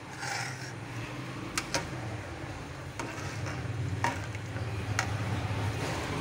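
Metal spoon stirring rice into qeema and water in a cooking pot: wet scraping with a few sharp clinks of metal against the pot, over a steady low hum.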